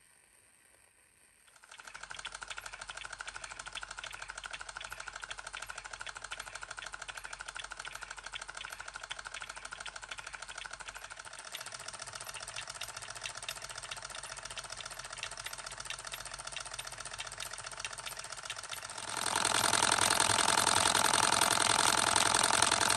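Ernst Plank water-cooled toy hot air engine running and driving a toy hammer mill by belt: a fast, even mechanical clatter. It comes in about two seconds in and grows much louder near the end.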